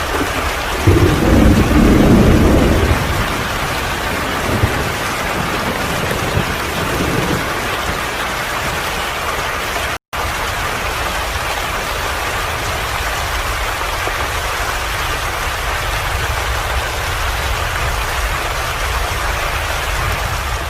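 Steady rain hiss, with a louder low rumble about a second in that lasts about two seconds. The sound cuts out for a split second midway.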